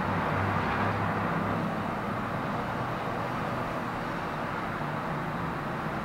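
Steady outdoor background noise, a constant hiss and rumble with a faint low hum that swells and fades.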